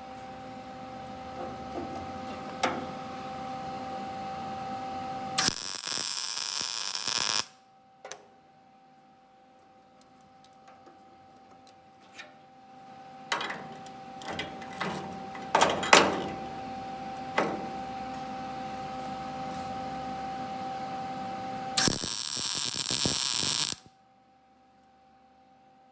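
A steady two-tone hum with two loud, harsh, crackling bursts of about two seconds each, one about six seconds in and one near the end, typical of MIG welding stitches on the Beetle's sheet-metal engine tray. Scattered clicks and metal taps come between the bursts.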